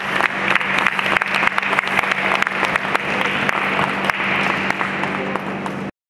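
A crowd applauding: a dense patter of many hands clapping over a steady low hum, cutting off suddenly near the end.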